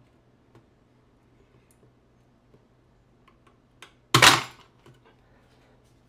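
Stranded copper wire pulling free of a Wago 773 push-in connector under tension, at about 36 lb of pull, and the hanging scale snapping back onto the wooden rig: one sudden sharp clatter about four seconds in. Before it only faint small creaks and ticks as the load builds.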